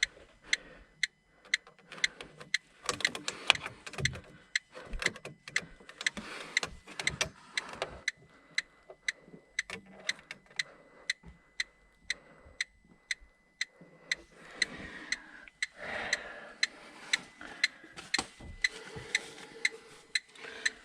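Electronic gas leak detector ticking steadily at about two ticks a second as it is held to the gas pipe joints. The rate does not quicken, which fits a reading with no gas found. Handling and rustling noises come in between the ticks.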